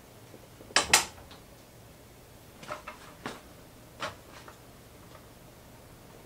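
A few sharp household clicks and light knocks: a loud double click about a second in, then several softer taps, the last about four seconds in as bare feet step onto a bathroom scale.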